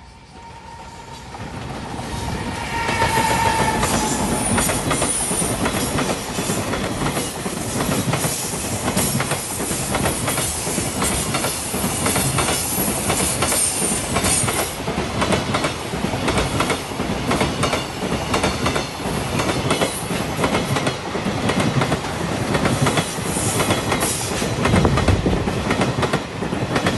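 JR Freight container train passing close by: its rumble builds over the first few seconds as it arrives, then a steady run of wheels clattering over the rail joints as the container wagons go past.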